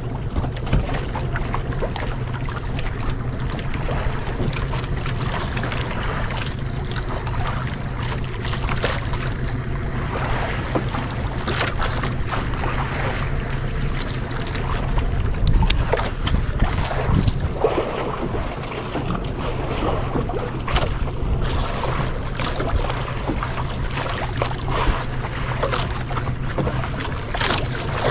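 A boat's engine running steadily at sea, with wind buffeting the microphone and water splashing against the hull.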